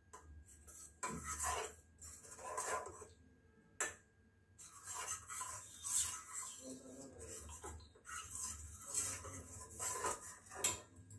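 Steel spoon stirring and scraping round a stainless-steel bowl, whisking a thin maida-and-water batter, in irregular strokes with a short lull and a sharp clink a little under four seconds in.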